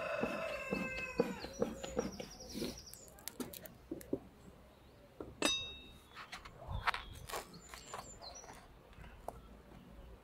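A rooster's crow trailing off in the first second and a half, then scattered knocks and clicks of wooden hive boxes being pried and lifted off, with a few short bird chirps.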